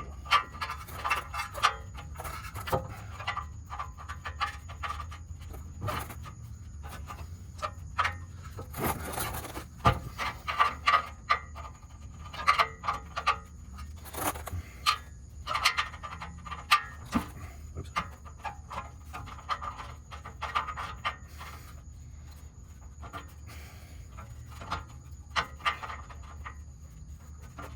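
Irregular clicks, knocks, scrapes and rubbing from hand tools and metal parts being handled, typical of an oxygen sensor being threaded back into a car's exhaust by hand.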